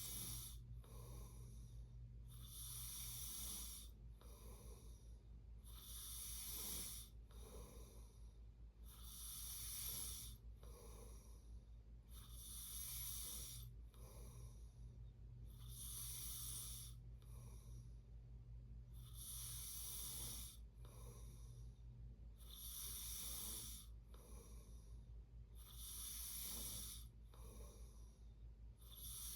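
A sleeping person snoring softly, a breath about every three seconds, each a longer sound followed by a shorter one, over a faint steady low hum.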